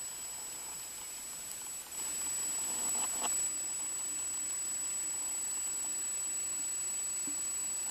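Steady hiss with a thin, high, unbroken whine: the self-noise of an Aiptek action camera recording underwater, sealed in its housing. The hiss gets louder about two seconds in, and a couple of faint clicks come about a second later.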